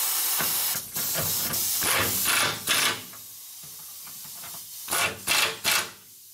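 Pneumatic impact wrench tightening transmission mount nuts: a loud steady air hiss for about the first second, then short bursts of hammering as it drives the nuts, with three quick bursts near the end.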